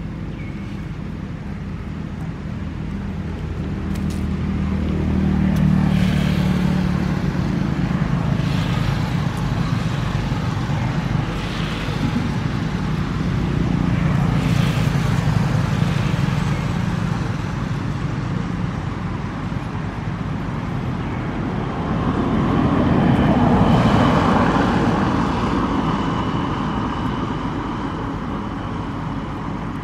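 Motor vehicle traffic: a low engine rumble that swells and fades as vehicles pass, loudest three times.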